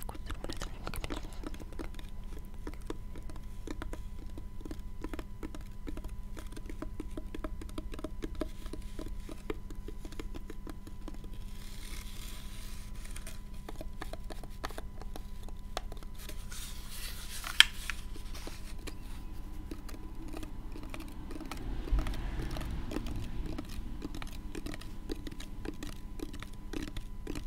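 Long fingernails tapping on a small hard black case held up to the microphone: quick, light, irregular clicks, with one sharp louder click about two-thirds of the way through and a low bump from handling a few seconds later. A faint steady electrical hum sits underneath, from a failing microphone.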